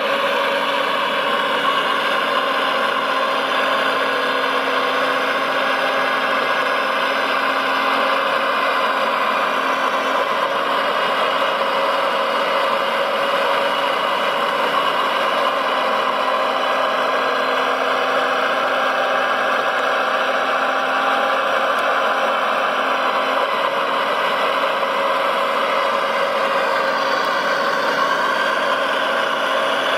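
Radio-controlled model construction vehicle running: a steady mechanical drone with several held tones and no sharp knocks.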